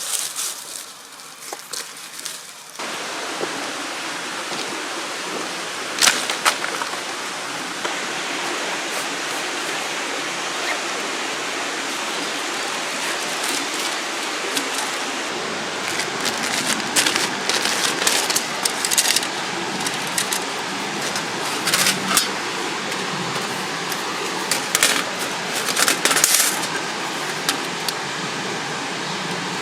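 Steady rushing of river water, starting abruptly about three seconds in, with scattered clicks and knocks over it.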